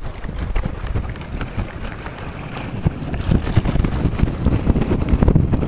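Wind buffeting the microphone: a low, gusty rumble that grows louder over the last two seconds or so.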